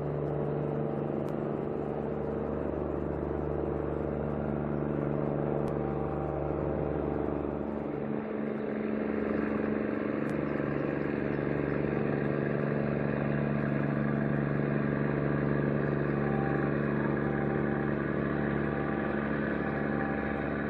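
An engine running steadily: a constant low drone with a steady pitch, holding level throughout.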